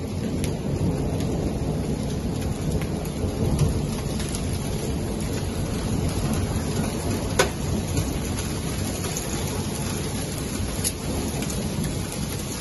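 Snow hail (graupel) falling steadily: a constant rushing hiss with a low rumble underneath and scattered sharp ticks of pellets striking. One tick stands out clearly about seven and a half seconds in.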